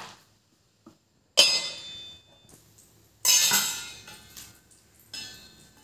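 Three sharp metallic clatters of kitchenware, about two seconds apart. Each rings out briefly and fades.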